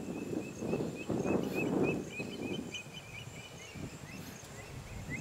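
Outdoor ambience with a bird calling in short, repeated chirps, several a second, over low muffled noise that is strongest in the first two seconds.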